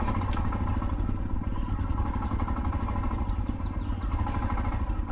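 Royal Enfield Himalayan's single-cylinder engine running steadily under way, with an even, low, pulsing exhaust beat.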